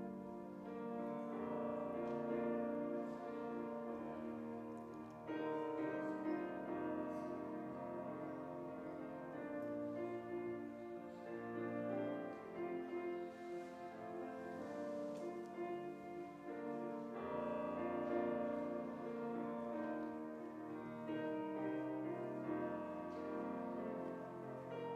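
Slow instrumental music of sustained chords, each held for a few seconds before moving to the next, with a mellow brass-like or keyboard tone.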